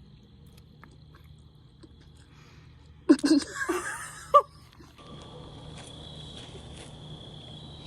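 A short burst of wordless vocal sounds about three seconds in, then a steady high-pitched chirring of crickets over a low background hum.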